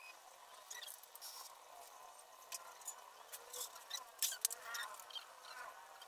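Scattered light clicks and taps from makeup tools and containers being handled, the sharpest about four seconds in.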